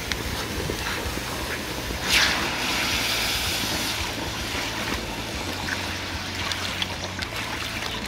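Water poured from a bucket into a steel tray over a still-hot copper casting, quenching it: splashing and sloshing that starts with a loud splash about two seconds in, then runs on as a steady pour.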